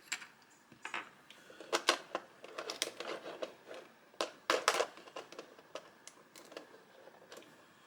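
Plastic packaging handled while small figure parts are taken out: irregular crinkling rustles and sharp clicks, busiest around two seconds in and again about four and a half seconds in, then thinning out.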